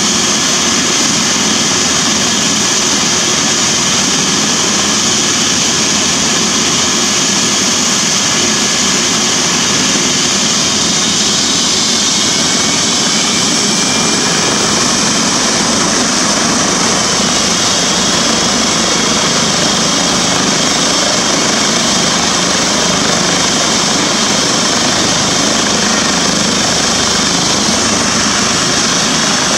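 Twin-turbine Eurocopter EC135 T2+ helicopter running on the ground with its rotors turning: a steady, loud turbine whine and rotor noise.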